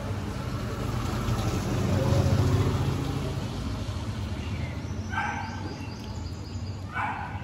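A motor vehicle rumbling past on the street, loudest about two seconds in, then a dog giving two short cries near the end.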